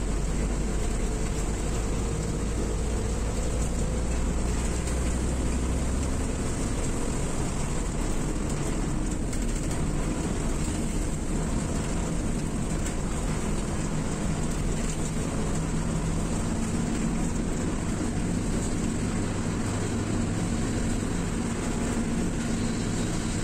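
Coach bus engine and road noise heard from inside the moving bus's cabin: a steady low drone with tyre and wind rush.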